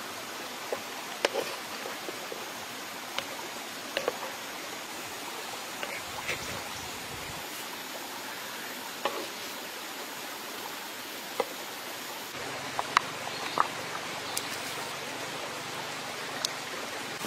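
Steady hiss of a flowing stream, with a few light clicks scattered through it, more of them near the end.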